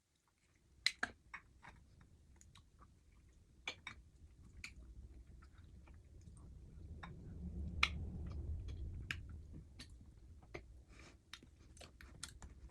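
A person chewing food close to the microphone, with scattered sharp clicks of mouth and crunch sounds and a low rumble that swells in the middle.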